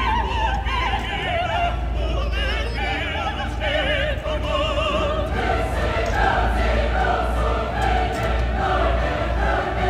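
Classical-style singing with a wide vibrato, over a low steady rumble.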